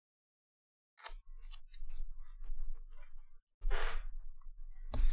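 Trading cards and packs being handled on a tabletop: after a second of dead silence, small clicks and rustles, a short crinkle of a foil card-pack wrapper a little before four seconds in, and louder handling near the end.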